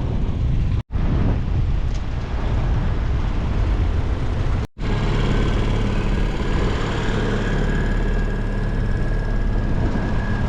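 Wind on the microphone and rushing water, broken by two abrupt cuts. From about five seconds in, a boat's motor runs steadily under the wind.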